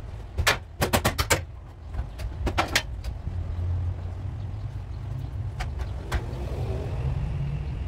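Sharp metallic clanks and taps from a hand tool worked against a stripped car body: a quick run of about six about a second in, a few more a moment later, and two single knocks later on. A steady low hum runs underneath.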